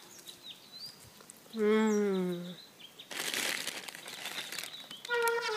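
A woman's drawn-out, slightly falling 'mmm' of enjoyment as she eats a marshmallow, about a second and a half in, followed by a second and a half of rustling noise. Synthesizer music starts near the end.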